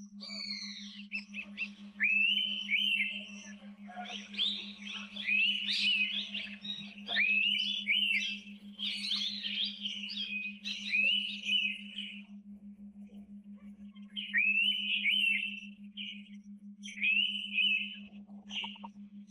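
Indian pitta calling: clear whistled notes that sweep up sharply and level off, given again and again in overlapping runs with a short pause about two-thirds of the way through. A steady low hum lies underneath.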